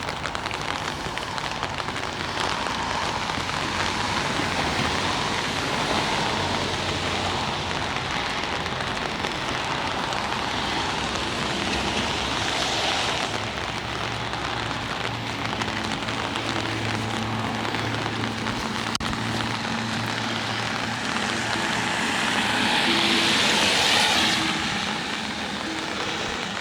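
Steady rain pattering on an umbrella held over the camera. A low hum comes in during the second half, and the hiss swells louder near the end.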